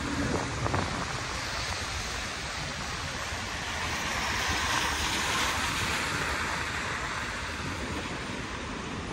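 Traffic on a rain-soaked road: tyres hissing on the wet asphalt, swelling as a box truck drives past about halfway through.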